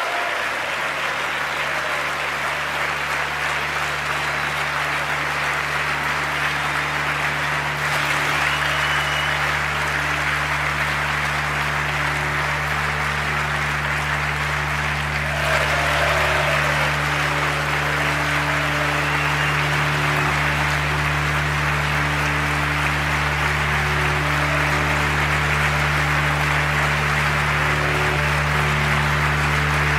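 A large audience applauding in a continuous, even wash of clapping. Slow ambient music of long-held low notes plays underneath, coming in about half a second in, and the applause swells slightly about halfway through.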